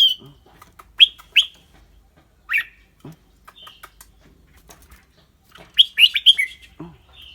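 Red-whiskered bulbul singing: short, clear, falling whistled notes, first one or two at a time, then a quick run of several notes about six seconds in.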